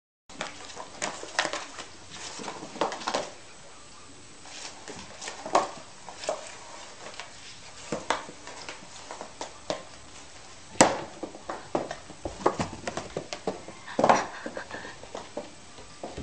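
Cardboard tissue box knocking and scraping on a tile floor as a cat with its head stuck inside it twists and scrambles, with irregular sharp knocks, the sharpest about eleven seconds in.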